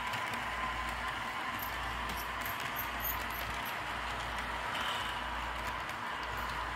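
HO scale model freight cars rolling along the track: a steady rolling hiss with a faint steady hum and scattered light clicks from the metal wheels on the rails.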